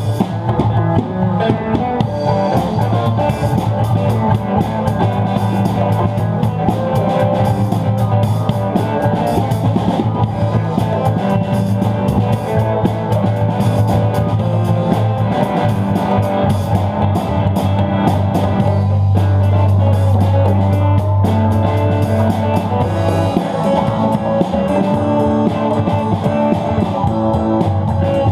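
Rock music with guitar and a drum kit.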